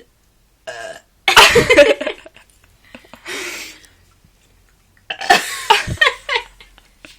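A person burping: a loud, long belch about a second in, and a second run of belching about five seconds in.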